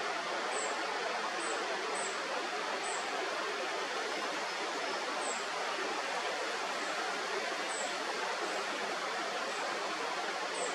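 A steady, even rushing noise, with faint, very short high chirps a handful of times.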